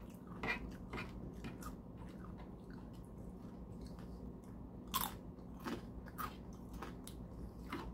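A person chewing the last small bites of a meal close to the microphone, with scattered small clicks and a sharper click about five seconds in.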